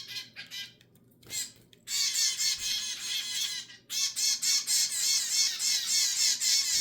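Zebra finch chicks making rapid, high-pitched begging calls, many a second. The calls are sparse for the first two seconds, then run on almost without a break.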